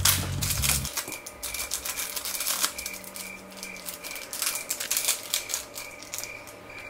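Small plastic blind bag being torn open and crinkled in the hands: a run of sharp, irregular crackles and rustles.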